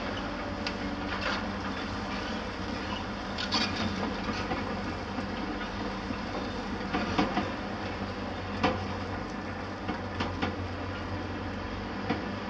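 Heavy demolition machinery, a tracked mobile crusher and excavators, running with a steady engine drone. Scattered sharp knocks and clatters of concrete rubble sound through it, the loudest a little past the middle.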